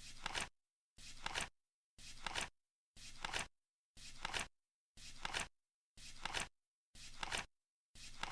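Flip clock's number flap turning over once every second, nine times: each a brief flutter that ends in a sharp click, with silence between.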